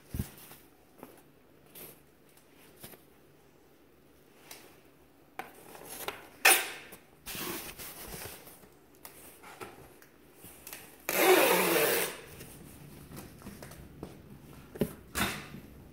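Fabric of dresses rustling and rubbing as they are lifted and turned over by hand close to the phone, coming and going, with a sharp knock about six and a half seconds in and a longer, louder rustle about eleven seconds in.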